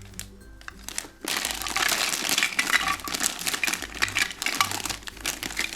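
Plastic packaging crinkling and rustling as toy pieces are unwrapped, starting about a second in and continuing as a dense crackle.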